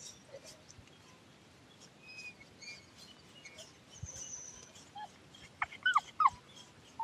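A dog whining: three or four short, high whines that rise and fall, near the end. Faint bird chirps run underneath.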